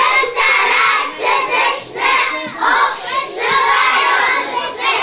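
A group of young children singing together in unison, in short phrases about a second long.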